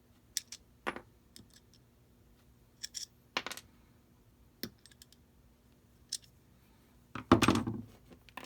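Scattered small clicks and light metallic taps from handling screwdrivers and small metal parts such as screws, with a louder clatter about seven seconds in.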